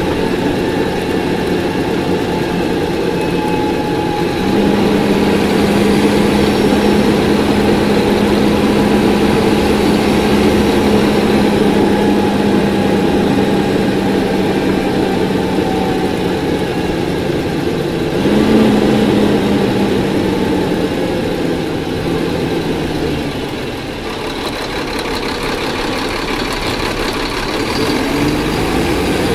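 Cummins ISC 8.3-litre diesel pulling a Nova Bus RTS transit bus, heard on board, with a whine from the rear axle that follows road speed. The engine pulls harder and louder about four seconds in, eases off about eighteen seconds in as the whine falls in pitch, then picks up again near the end.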